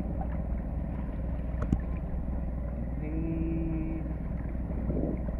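Steady low rumble of wind and water at the sea surface, with one sharp click a little under two seconds in and a faint held tone around three to four seconds in.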